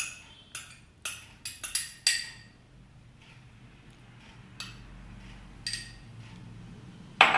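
Quick sharp clinks and taps against a mixing bowl as eggs are cracked and added: about seven in the first two and a half seconds, a few scattered ones after, and a louder knock near the end.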